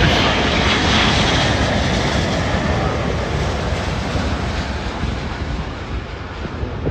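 Jet noise from an Airbus A380's four engines as it passes low on its landing, loudest at the start and fading steadily as it moves away.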